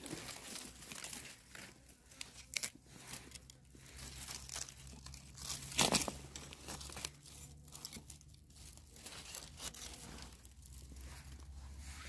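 Dry leaf litter rustling and crackling under a hand and feet, a string of irregular crinkles with one louder crunch about six seconds in.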